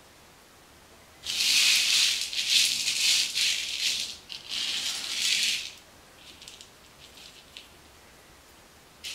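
Dried purple hull peas rattling and rolling across a metal pizza pan with holes in it as a hand spreads them out. There is a long rush of rattling about a second in, a shorter one just after, then a few faint clicks.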